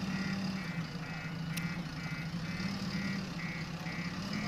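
Backhoe loader's diesel engine running steadily while its reversing alarm beeps about twice a second.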